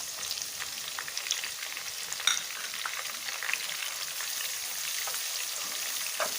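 Thinly sliced onion sizzling and crackling steadily in hot frying oil, with one brief click a little over two seconds in.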